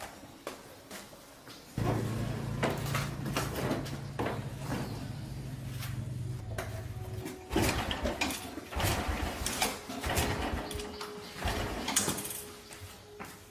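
Metal parts and tools knocking and clattering in repeated short knocks, with a steady low machine hum for about four seconds starting about two seconds in.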